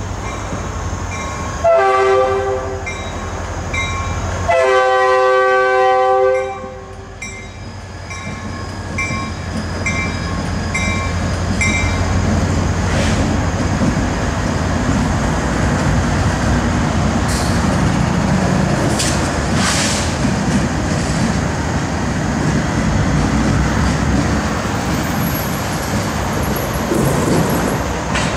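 Diesel freight locomotive horn sounds a short blast, then a longer one, over a grade-crossing bell dinging about twice a second. Then the locomotives (an SD40-2, an AC44CW and a CW40-9) rumble through the crossing, with steady diesel engine drone and wheels clicking on the rails.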